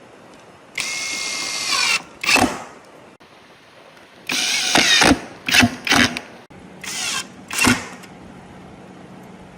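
A power tool run in short bursts: a longer run of about a second near the start, then five or six brief bursts, some rising and falling in pitch as the motor spins up and down.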